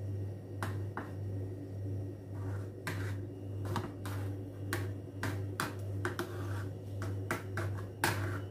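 Steel spoon clicking and tapping against the dish at irregular intervals while smoothing a layer of soft semolina pudding, over a steady low hum.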